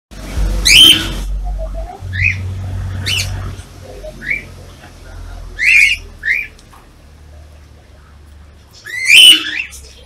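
Cockatiels calling: about seven short calls that rise and fall in pitch. The three loudest come near the start, about six seconds in, and near the end.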